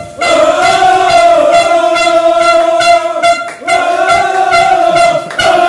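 A group of footballers singing a celebration chant loudly in unison, holding long notes in phrases that break off briefly for breath twice.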